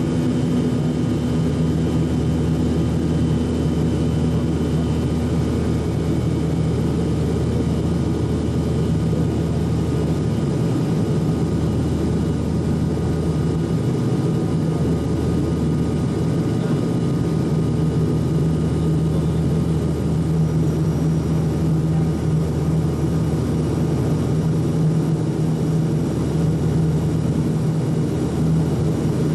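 Steady drone of a turboprop airliner's engines and propellers heard from inside the cabin during the approach, with a low hum that holds even throughout. One higher tone fades out about six seconds in.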